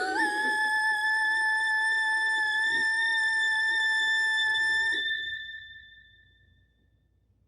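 A high, steady tone with many overtones, sliding up at the start and held for about five seconds before fading away.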